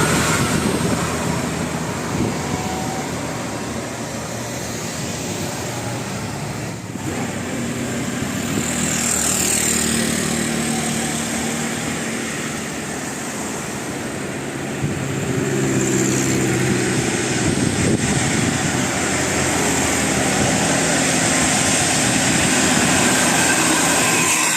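A bus engine running amid steady traffic noise, with a low hum that is strongest in the middle stretch.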